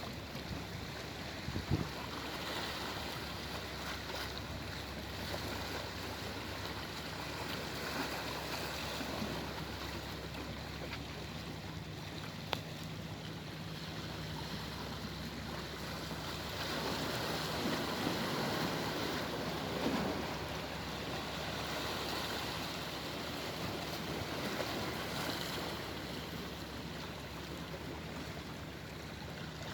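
Sea waves washing continuously onto the shore, swelling louder for a few seconds past the middle.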